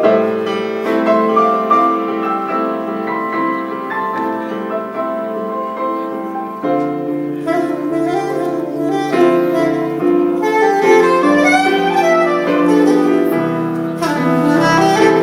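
Saxophone playing a melody of held notes over piano accompaniment.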